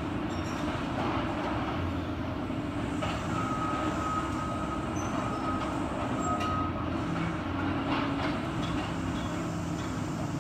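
Demolition excavator working: its diesel engine runs steadily under load with a low hum and a dense rumble. A steady high squeal holds for about three seconds midway, and a few knocks and clatters of debris come through around it.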